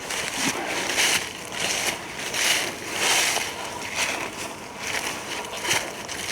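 Footsteps crunching through dry fallen leaves on a woodland trail, a steady walking rhythm of about two crunching steps a second.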